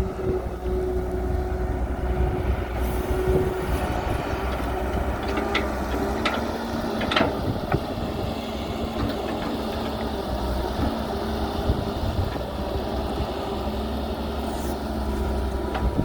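Excavator's diesel engine running steadily under load, with a few short sharp knocks about halfway through.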